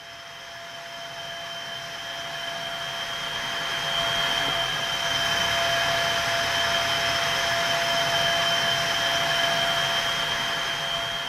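Taff Vale 0-6-2 tank engine No. 85 venting steam: a steady hiss carrying two thin, unchanging tones. It swells over the first few seconds and fades near the end.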